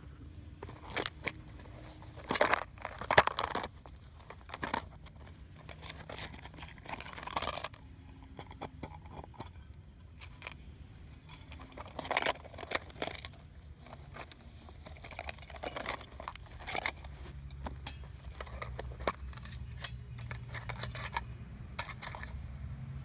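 Hands handling a flint-and-steel fire kit: a leather pouch being unwrapped and small metal tins opened and set down, giving irregular rustles, scrapes and sharp little clicks, loudest a few seconds in and again about halfway through.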